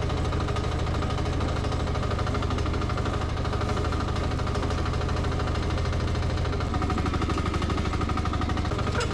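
Engine of a 1-ton Nuoman E10 mini excavator running steadily as the machine works, with a little change in its note about seven seconds in.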